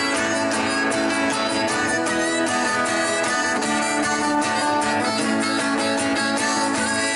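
Live acoustic music: a steel-string acoustic guitar strummed in a steady rhythm, with a harmonica holding notes over it.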